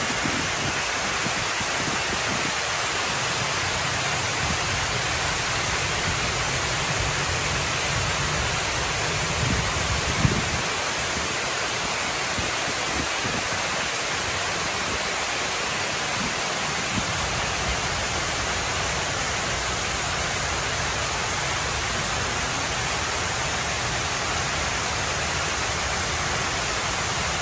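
Water sheeting down the tall ribbed wall of the Hines Waterwall fountain and splashing into its basin: a steady, even rush. A brief low thump on the microphone about ten seconds in.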